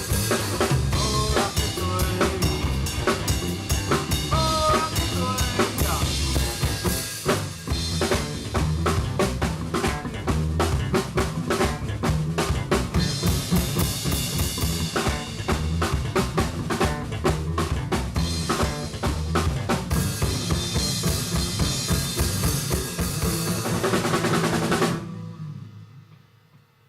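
Live band playing a loud, drum-heavy song on full drum kit, bass and other instruments; the song ends about two seconds before the close, and the final chord rings out and fades away.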